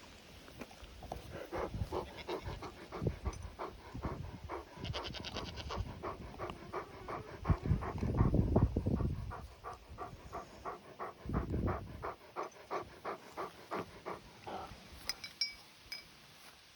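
A dog panting close by in a steady rhythm of about three breaths a second, with a louder low rumble about halfway through.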